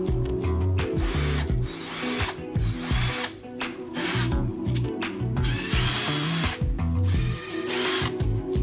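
Cordless drill running in short bursts, about six in all, the longest about six seconds in with its pitch rising as the motor spins up. Background music with a beat plays underneath.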